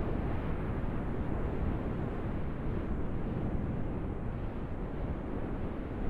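Wind blowing steadily, an even low rushing noise with no gusts or breaks.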